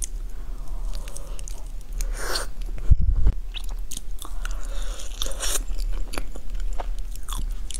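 Close-miked wet eating sounds of a soft pink crepe cake with strawberry sauce: sticky chewing with repeated mouth clicks and lip smacks. A low thump about three seconds in is the loudest moment.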